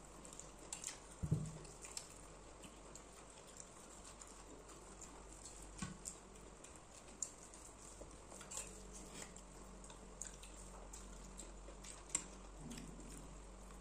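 Quiet eating sounds: fingers working rice on plates and soft chewing, with scattered light clicks of dishes and a soft knock about a second in.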